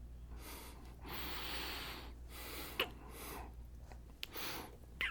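A man breathing close to the microphone, with about five audible breaths, the longest about a second, and a few small mouth clicks in between.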